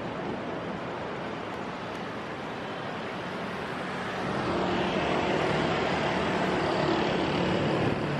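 City street traffic noise, with motorcycles riding past close by: the engine sound grows louder about halfway through and holds steady as they pass.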